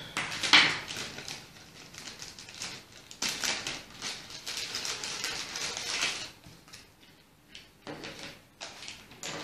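Rustling of a clear plastic bag and cables being handled on a tabletop, in irregular bursts with small clicks, busiest for a few seconds in the middle and thinning to a few faint ticks near the end.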